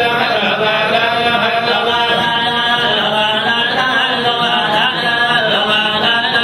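A group of men chanting together in unison, a Sufi devotional chant of the Hamallist order, with long held notes and no pauses.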